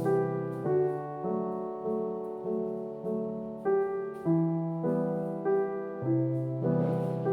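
Background music: a soft piano tune with a new note or chord about every half second.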